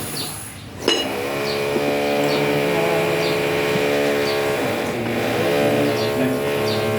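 A motor running steadily with a pitched hum, dropping out briefly about half a second in and coming back with a sharp click just under a second in.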